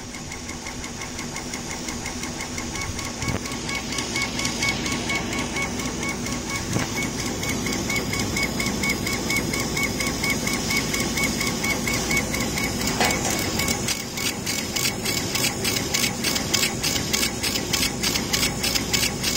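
CO2 laser cutting machine running while it cuts acrylic: a steady mechanical hum with a pulsing whine, turning into a rapid, regular stutter about two-thirds of the way in as the cutting head darts back and forth on its gantry.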